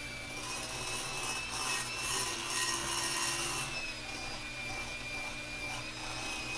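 Electric stand mixer running, its motor giving a steady whine that wavers slightly in pitch as the beaters churn chocolate cake batter, with a louder churning hiss through roughly the first half.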